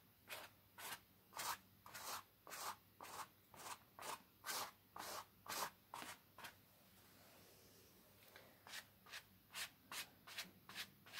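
Paintbrush scrubbing on canvas in quick, even strokes, about two a second, with a short pause a little past the middle before the strokes start again.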